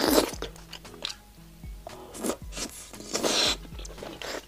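Close-miked eating of sauced mantis shrimp: a loud bite right at the start, then chewing with more loud mouth noises about two seconds in and again a little after three seconds.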